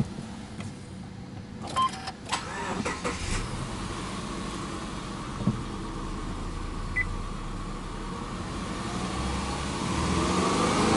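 Subaru Legacy B4 2.0i's EJ20 flat-four engine, heard from inside the cabin, catching after a short crank about two seconds in and settling to a steady idle around 1,000 rpm. Near the end it is revved lightly toward 2,000 rpm.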